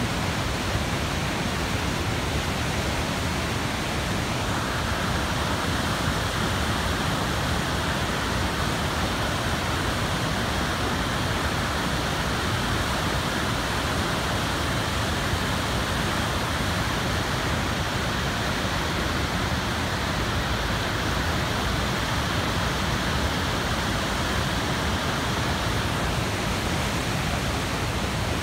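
Waterfall in heavy flood, a torrent of white water pouring over a dam and churning below it, making a steady rushing noise.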